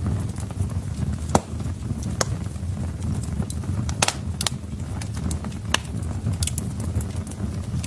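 Wood fire burning in a fireplace: a steady low rumble of flames with scattered sharp crackles and pops from the burning logs, the loudest pop about a second and a half in.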